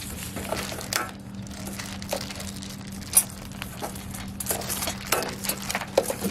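Small grill parts and their packaging being handled: scattered light clicks, clinks and crinkles, with two sharper clacks, one about three seconds in and one near the end.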